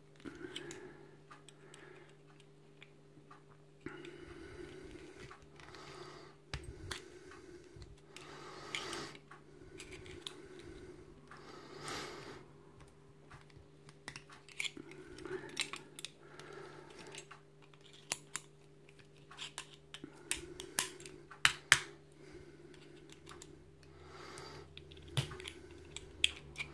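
Irregular small metal clicks and scrapes of a screwdriver prying and pushing the pins out of a cheap padlock's body, over a steady low hum.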